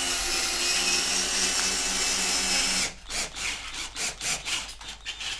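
Cordless drill-driver running steadily as it drives a short wood screw with a washer through old plaster into the board base behind, pressing the loose plaster tight. The motor stops about three seconds in, and a run of short clicks follows.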